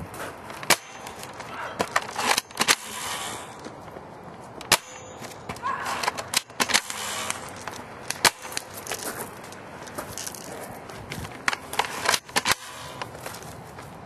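Airsoft guns firing single shots at irregular intervals, sharp snapping cracks scattered among rustling and footsteps.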